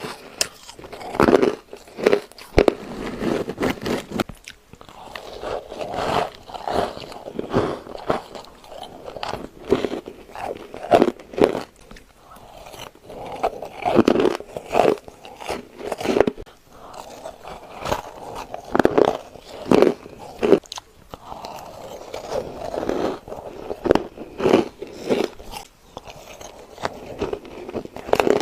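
Close-up ice eating: a person biting and crunching ice, with bursts of sharp crunches in quick runs, separated by short pauses.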